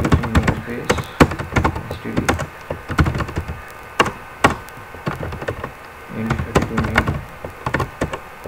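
Typing on a computer keyboard: irregular keystroke clicks, some louder than others.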